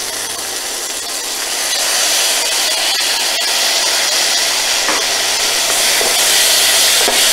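Onions, tomato and green chillies frying in oil in an aluminium kadai, with sauces just poured on, sizzling in a steady hiss that grows louder about two seconds in. A metal spatula scrapes and stirs the pan near the end.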